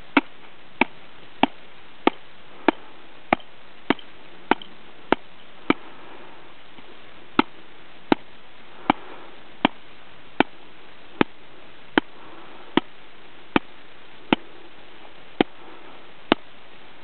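Hand tapping on a snow shovel blade laid on top of an isolated snow column during an extended column test, loading the column to test a buried facet layer. Ten quick, sharp taps about 0.6 s apart, a pause of nearly two seconds, ten slower taps, then harder taps from shoulder height about a second apart near the end.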